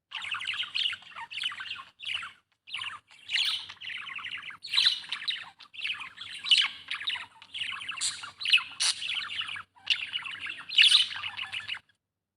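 Budgerigar chirping: a busy, continuous stream of quick chirps and chatter with a few brief pauses, which stops abruptly near the end.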